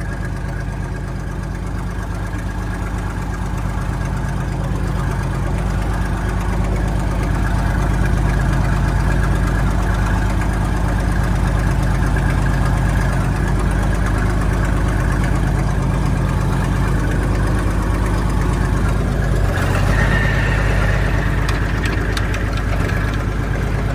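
Cold tractor engine running at low speed while warming up, the tractor being moved slowly. The engine gets a little louder a few seconds in, with a brief knock about twenty seconds in.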